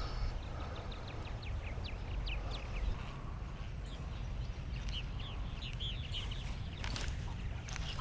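Small birds chirping: a quick run of short high chirps, then a few longer arching calls about five seconds in, over a low steady rumble and a thin steady high whine.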